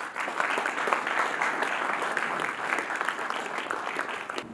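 Audience applauding: many hands clapping at once in a steady stream that stops abruptly near the end.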